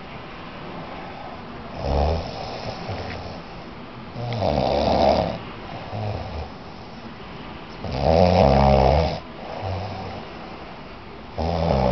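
A drunk, exhausted man snoring heavily in deep sleep. Four loud rasping snores come about every three to four seconds, with softer breaths in between.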